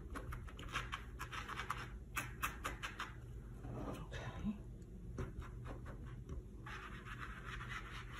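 Sponge ink applicator dabbing and scrubbing distress oxide ink onto the edges of a cardboard collage: quick scratchy pats for about the first three seconds, then a short stretch of softer rubbing near the end.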